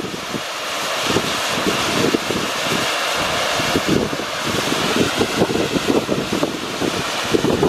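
Volcanic fumarole venting steam from a sulphur-crusted vent with a steady hiss, with gusts of wind buffeting the microphone underneath.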